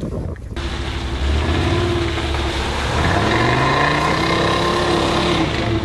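Volkswagen Passat B2 Syncro's engine revving as the car pushes through mud. Its pitch climbs from about three seconds in and falls back near the end.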